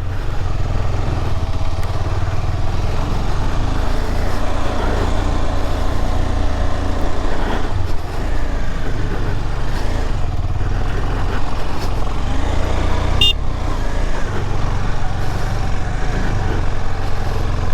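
KTM 250 Adventure's single-cylinder engine running under load as the motorcycle rides up a rough, rocky off-road track, a continuous low rumble that rises and falls. A brief high-pitched tone about 13 seconds in.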